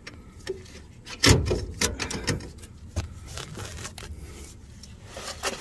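A metal fuel line and the old mechanical fuel pump being worked down through an engine bay by hand: scattered knocks, clicks and scrapes against the engine and frame, the loudest knock a little over a second in.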